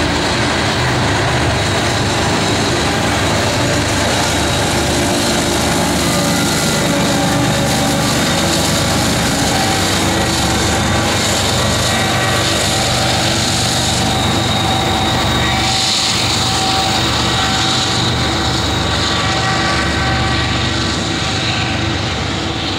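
Coal train passing: hopper cars rolling by, then the rear distributed-power diesel locomotive going past with a steady engine drone over the rumble of the wheels. The sound eases slightly near the end.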